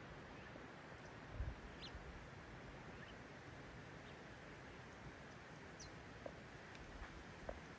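Faint open-air quiet with a few brief, high bird chirps scattered over a low hiss, and one soft low thump about a second and a half in.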